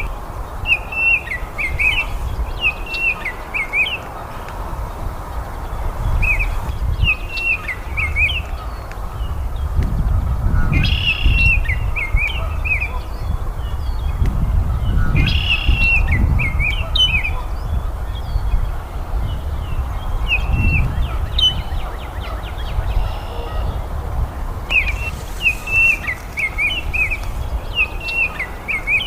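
Baltimore oriole singing: short phrases of clear whistled notes that bend up and down, repeated every four or five seconds, over a steady low rumble.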